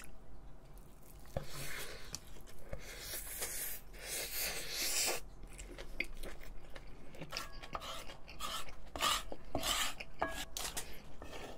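Close-up chewing of a mouthful of kimchi fried rice, in irregular crunchy bursts. Near the end a spoon scrapes and clicks against the frying pan.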